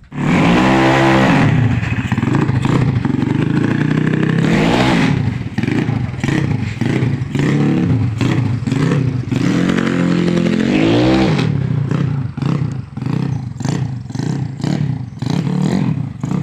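Bored-up 200cc Yamaha Mio Soul scooter engine, a single-cylinder four-stroke fitted with a 65.5 mm Honda Tiger piston, being revved hard. It starts suddenly, holds high revs for a few seconds, then gives repeated sharp throttle blips and one more long rev, with the blips coming quicker near the end.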